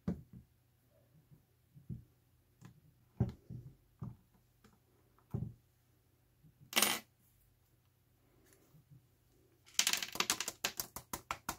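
Hands handling and working apart a cordless drill's hard plastic housing: scattered clicks and knocks, a short scrape about seven seconds in, and a quick rattling run of clicks near the end.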